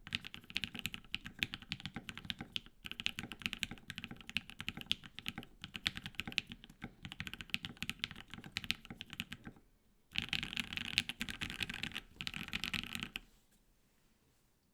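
Typing on a Think6.5 V2 custom mechanical keyboard with lubed and filmed JWK Dogikon linear switches, an FR4 plate with plate foam and PBT keycaps. Keystrokes come in a steady, dense stream, stop briefly about ten seconds in, then pick up again in a fast run that ends about three seconds before the close.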